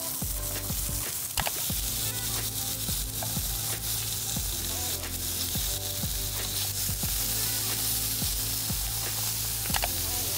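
Marinated beef short ribs sizzling steadily on an electric grill plate, with a couple of sharp clicks.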